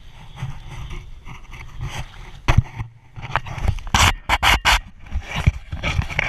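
Handling noise as a wooden trap stake and a muskrat trap are pulled and worked beside a canoe: irregular knocks and scrapes, densest about four seconds in.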